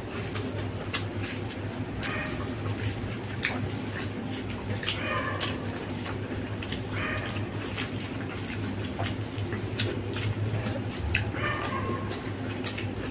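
Wet squelching and smacking of bare hands mixing and scooping rice with egg omelette curry, with chewing and lip-smacking, many short sharp clicks, over a steady low hum.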